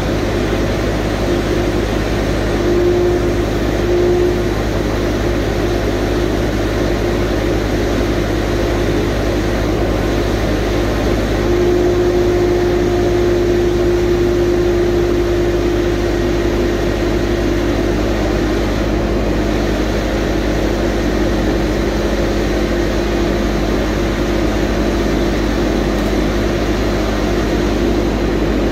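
Bobcat skid-steer loader's engine running steadily, heard close from the operator's cab, with a humming tone that strengthens briefly about three seconds in and again from about twelve to sixteen seconds in.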